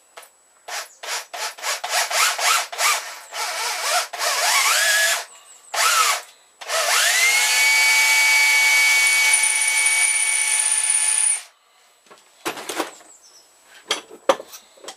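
Corded electric drill boring a roughly 3 mm hole through a thin steel spring held in a bench vise. The motor runs in short stop-start bursts for about the first five seconds, then spins up in a rising whine and runs steadily for about five seconds before stopping suddenly. A few knocks follow near the end.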